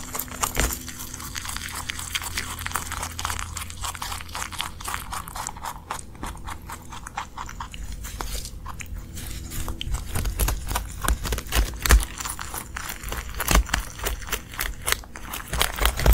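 Close-miked chewing and crunching on a leaf right at the microphone: irregular crisp bites and crunches, loudest about twelve seconds in and again near the end.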